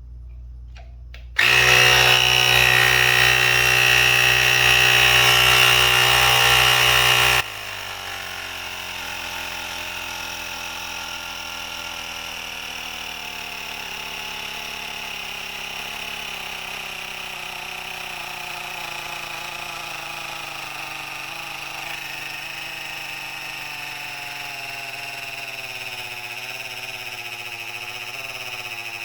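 Battery-powered portable tire inflator's piston compressor starting up about a second in and running hard, pumping up a flat car tire. Loud for about six seconds, then abruptly quieter, running on steadily with its pitch slowly falling.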